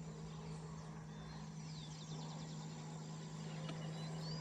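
Faint bird calls: short sweeping whistles, each followed by a quick run of ticking notes, heard twice, over a steady low hum of outdoor background noise.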